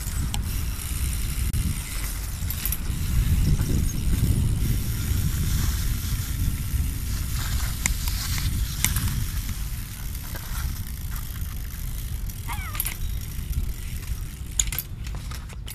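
BMX bike ridden on stone paving: tyres rolling under a heavy wind rumble on the microphone, with a few sharp clicks and knocks from the bike and a short squeak about three-quarters of the way through.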